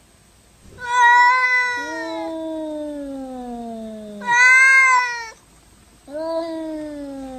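Domestic cat meowing in three long, drawn-out calls, each falling in pitch; the middle call is shorter and louder, and the last runs on.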